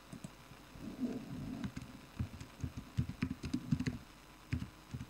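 Computer keyboard typing: a run of quick, dull keystrokes from about a second in to nearly four seconds, then two more about four and a half seconds in.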